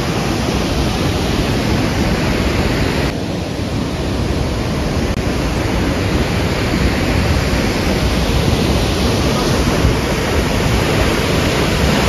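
Athirappilly waterfall: the loud, steady rush of a large waterfall heard close by.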